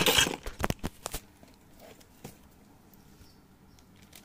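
Clear plastic bag of TV wall-mount bracket hardware crinkling as it is pulled away, trailing off in the first second. Several light clicks of the metal parts shifting in the cardboard box come with it, then a faint one a little after two seconds. After that there are only faint handling sounds.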